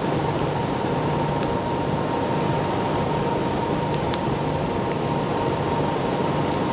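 Steady hum and hiss of a running fan or ventilation unit, with a thin steady whine, broken by a few faint light clicks from handling a small plastic camera and its rubber gasket.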